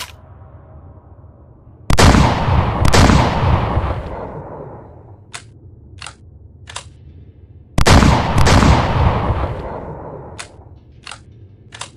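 Remington SPR210 double-barrel shotgun fired twice in quick succession, the two shots about a second apart with a long echoing tail. Three sharp clicks follow, then the pair of shots and the three clicks repeat.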